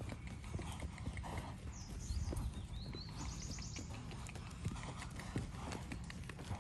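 Horse trotting and cantering on a lunge line, its hooves thudding irregularly on soft sandy dirt.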